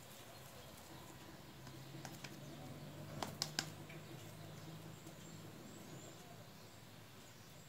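Quiet room tone with a faint low hum through the middle and a few light clicks, the sharpest pair a little over three seconds in.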